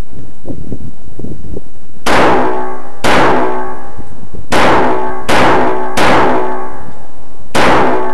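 Six gunshots fired singly at an uneven pace, each leaving a ringing tail.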